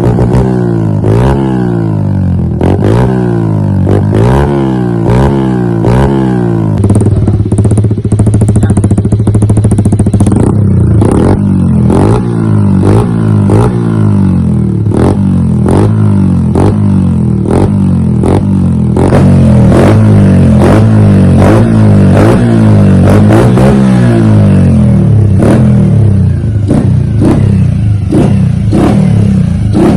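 Bajaj Boxer CT motorcycle's single-cylinder engine running through an aftermarket full exhaust system with resonator, revved again and again in quick throttle blips. The pitch rises and drops back with each blip, about once a second, with sharp pops at each blip.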